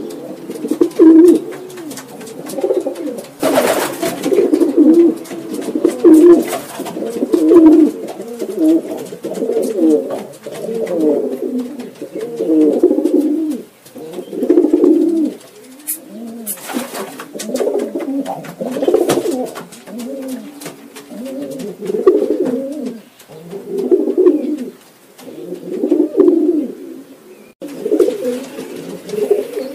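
Domestic pigeons cooing over one another in repeated low, rolling phrases, with a couple of brief rustles among them.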